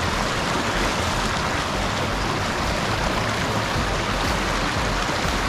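Shallow mountain creek rushing steadily over rocks and small riffles, a continuous even hiss of running water.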